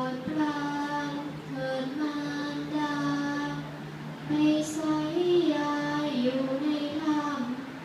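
A girl's voice chanting Thai verse (klon suphap) in the traditional melodic recitation style, holding long sung notes that glide between pitches, with short breaths between phrases.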